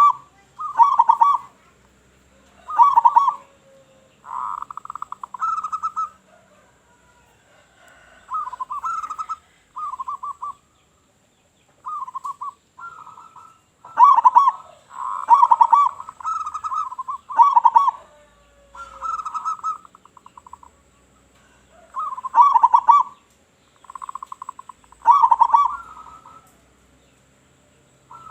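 Zebra doves cooing: one quick, pulsed coo phrase after another, each about a second long, separated by short pauses.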